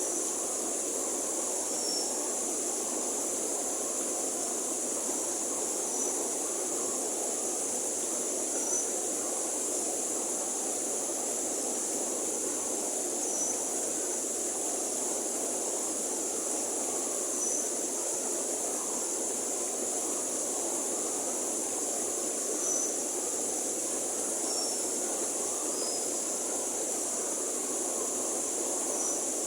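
River water flowing with a steady, even rush. Over it sits a constant high-pitched hiss, the loudest part of the sound, and brief faint high chirps come every few seconds.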